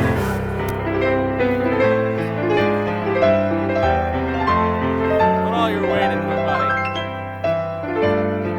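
Background music led by piano or keyboard, with held chords changing every second or so.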